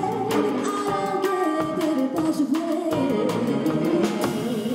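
A woman singing a wavering melody into a microphone, backed by a string ensemble of violins, cello and double bass, with drums.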